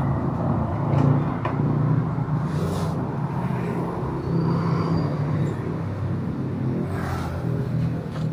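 An engine running steadily at idle, a low even hum, with a few faint clicks.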